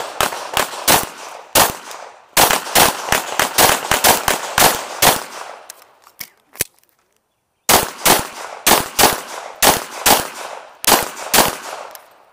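Rapid strings of pistol shots fired in a practical shooting stage, in quick runs of several shots each, with a pause of about two seconds just past the middle, broken only by a couple of faint clicks, before firing resumes.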